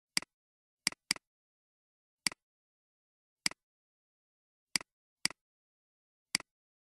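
Computer mouse clicks: eight short, sharp clicks at uneven intervals, each a quick press-and-release pair, with dead silence between them.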